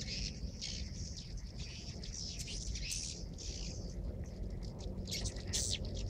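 Edible-nest swiftlets chittering: a rapid, continuous run of short high chirps, busiest near the end, over a steady low rumble.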